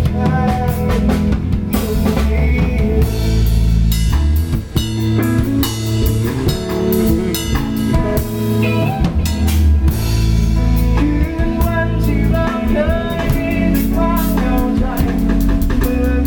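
Instrumental pop-rock music with a full drum kit, a heavy bass line and guitar.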